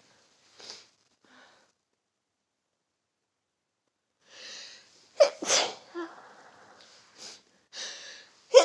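A person sneezing. After a quiet pause there is a drawn-in breath and one sharp sneeze about five seconds in. Softer breaths follow, and another sneeze begins right at the end.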